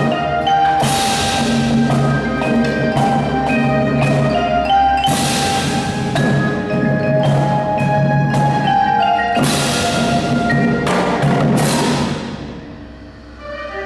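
Indoor percussion ensemble playing: ringing mallet-keyboard notes over drum strikes, with several cymbal crashes. The music dies down briefly about a second before the end.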